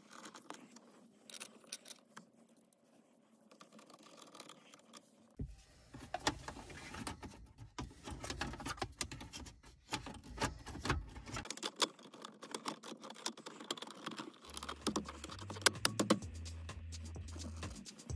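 Plastic dashboard trim being handled and pressed into place on a Toyota centre console: repeated sharp clicks, taps and light scrapes. Background music with a low bass line comes in about five seconds in.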